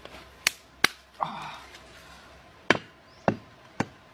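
Five sharp knocks, irregularly spaced: two close together near the start and three in the second half.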